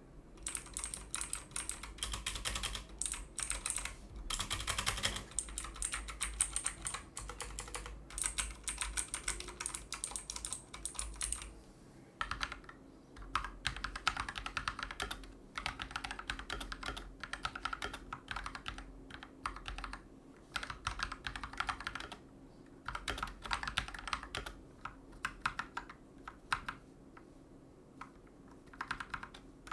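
Typing on a Redragon Kumara mechanical keyboard fitted with Akko Matcha Green switches and a foam mod, which has made it much less noisy. A fast, nearly unbroken run of keystrokes, then from about twelve seconds in, bursts of typing with short pauses between them.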